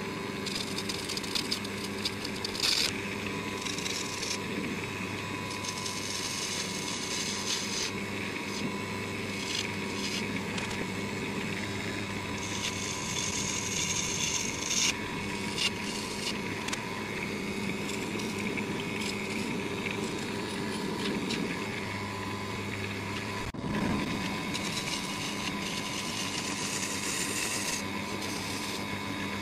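Wood lathe running with a turning tool cutting a spinning blank of melted crayon wax. A scraping hiss swells and fades over the steady hum of the lathe motor.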